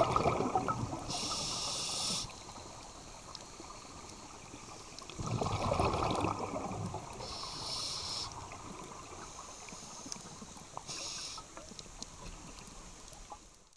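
Scuba regulator breathing heard underwater. A low rush of exhaled bubbles comes at the start and again about five seconds in, each followed by a hissing inhale through the regulator, and there is one more brief hiss near the end.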